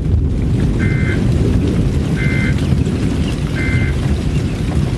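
A Midland WR-100 weather radio plays the EAS end-of-message signal: three short two-tone data bursts about 1.3 seconds apart. The bursts sit over a loud low noise haze.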